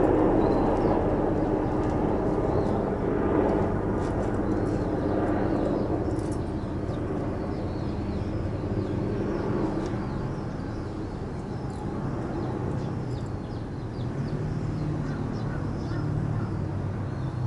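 Outdoor ambience: a steady low rumble, louder in the first few seconds and easing off, with faint high bird chirps scattered through the later part.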